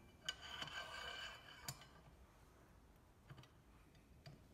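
Steel jack handle being slid onto an Allen key as an extension bar: a metal clink sets off a brief metallic ring that dies away, with a second clink about a second and a half later and a few faint clicks after.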